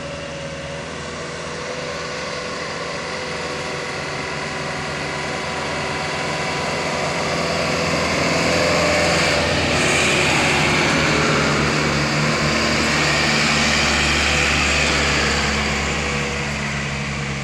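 Loaded sugarcane trucks' diesel engines labouring uphill under heavy throttle, growing louder as a truck comes up the bend and passes, loudest through the middle, then easing as it pulls away.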